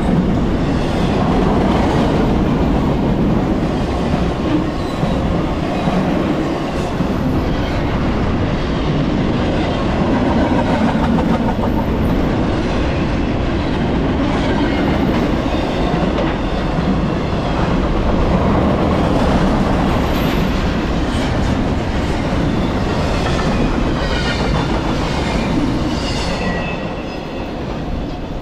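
A double-stack intermodal freight train's well cars rolling past, with a steady noise of steel wheels on rail. Faint high wheel squeals come in during the last few seconds, and the sound eases a little as the end of the train draws away.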